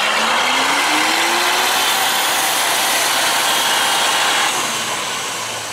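Wheeled farm tractor's diesel engine revving hard under heavy load as it tows a loaded lorry through mud, its pitch rising over the first two seconds, under a loud rushing noise that eases off about four and a half seconds in.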